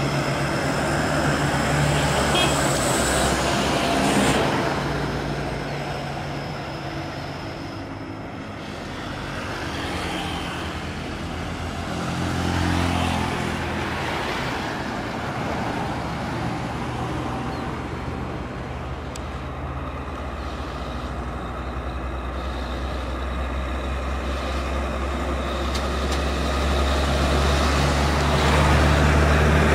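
Diesel trucks pulling loads uphill in steady road traffic, their engines running hard at low speed. A heavy Hino truck's diesel grows louder in the last few seconds as it passes close by.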